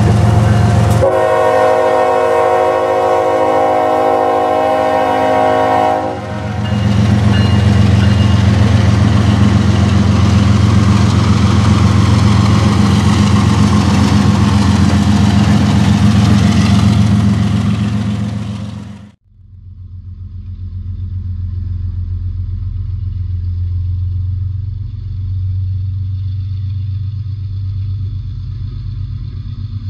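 Norfolk Southern diesel freight locomotive sounding its horn, a chord of several tones held for about five seconds, then passing close with loud engine rumble and wheel noise. About two-thirds through the sound cuts off suddenly to a steady low engine hum heard from inside a car.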